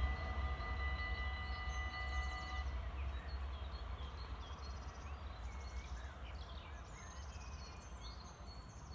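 Level-crossing warning bells ringing as a steady, multi-toned ring that stops about three seconds in, as the barriers start to lift after the train has passed. Then birds chirp over a low rumble.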